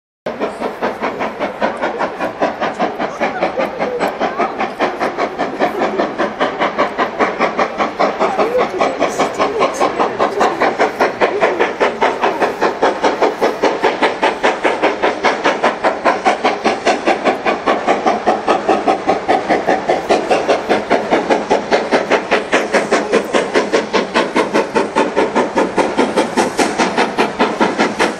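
Steam locomotive working a train, its exhaust beating in a fast, steady chuff at about four beats a second; it starts suddenly just after the start and grows a little louder over the first few seconds.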